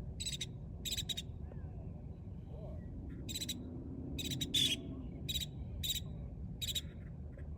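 Birds calling: about a dozen short, high chirps repeated at irregular intervals, over a steady low background rumble.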